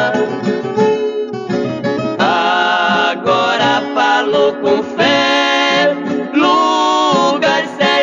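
Sertanejo music: plucked acoustic guitars play an instrumental passage of long, sliding melody notes.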